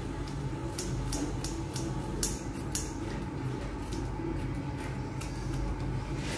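Grooming scissors snipping through a puppy's fur: a run of short, crisp snips, irregularly spaced, over a steady low hum.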